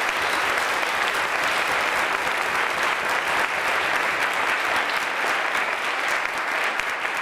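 Audience and people on stage applauding, a steady round of clapping.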